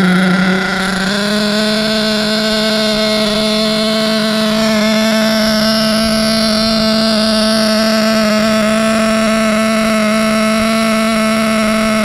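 Serpent SRX8 1/8-scale nitro buggy's glow engine running on the bench at a fast idle during its first break-in heat cycle. It makes a steady, high-pitched drone that rises slightly in pitch in the first second and then holds.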